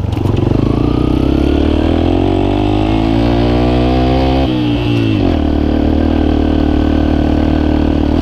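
Yamaha XTZ 125's single-cylinder four-stroke engine, fitted with an aftermarket WACS exhaust, pulling under acceleration with its pitch rising steadily, then falling quickly about four and a half seconds in and holding steady.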